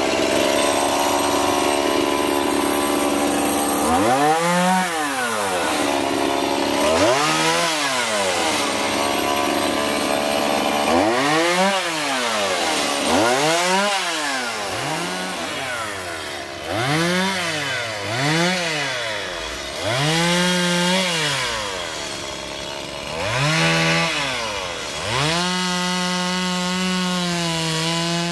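Gas chainsaw cutting through tree limbs, its engine revving up and dropping back about ten times as it works through the branches, then holding a steady speed near the end.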